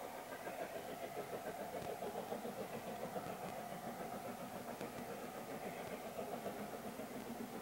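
Faint, rapid, regular exhaust beats of the LNER A4 steam locomotive No. 4498 'Sir Nigel Gresley', a three-cylinder engine, working a train.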